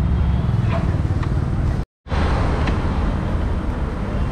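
Steady low rumble of street traffic, broken off by a brief dropout about two seconds in, with a few faint clicks.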